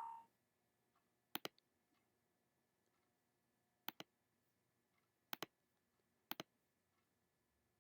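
Computer mouse button clicking four times, each a quick pair of clicks, spaced a second or more apart in an otherwise quiet room. A brief click with a short tone comes right at the start.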